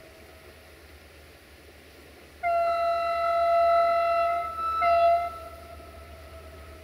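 Distant train horn: one long blast of about two seconds, then a short blast on the same single steady pitch.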